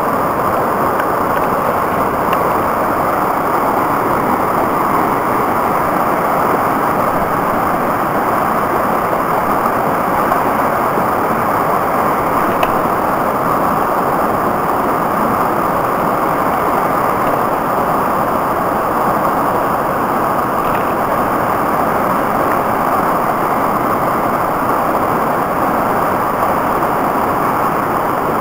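Rushing brook: whitewater tumbling over boulders and rocks in a steady, unbroken rush.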